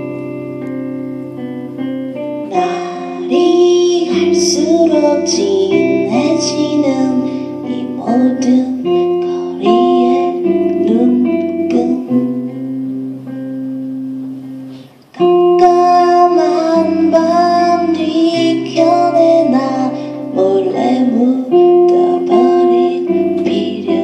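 Live song with guitar playing long held chords under a singing voice. The music dips briefly about two thirds of the way through, then comes back loud.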